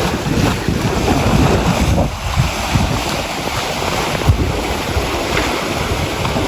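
Wind blowing across the microphone over sea waves washing onto the shore: a continuous rush with an uneven low buffeting from the gusts.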